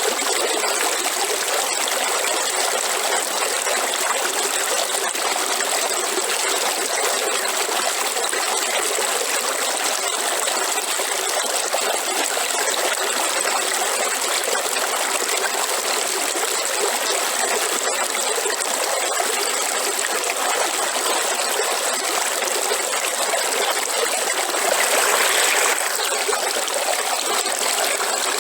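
River water flowing and trickling in a steady, even rush, with a steady high thin tone running over it. The flow swells briefly louder about three-quarters of the way through.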